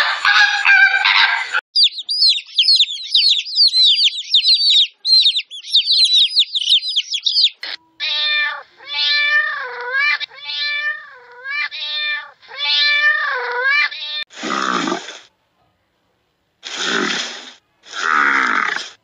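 A run of animal calls. About six seconds of rapid, high chirping comes first. Then domestic cats meow again and again for about six seconds. Near the end there are four short, harsh calls.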